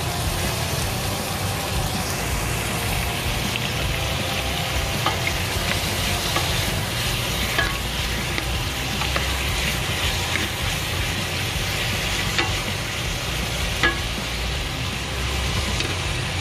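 Pork belly chunks sizzling as they fry with onions and garlic in a stainless steel pot. A wooden spoon stirs them and knocks against the pot a few times, loudest near the end, over a steady low rumble.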